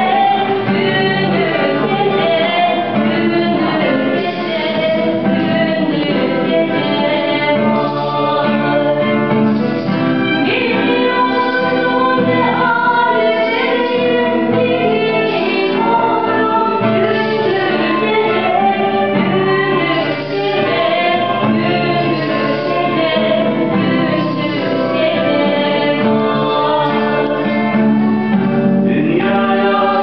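Several voices singing a Turkish folk song to acoustic guitar, with a violin following the melody.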